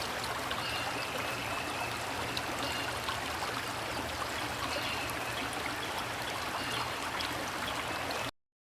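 Steady rushing of flowing water, like a stream, with a few faint high chirps over it; it cuts off suddenly near the end.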